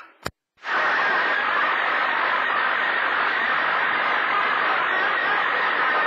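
CB radio receiver static on channel 28: a click and a brief dropout about half a second in, then a steady, loud rush of hiss as the receiver opens up on the band noise.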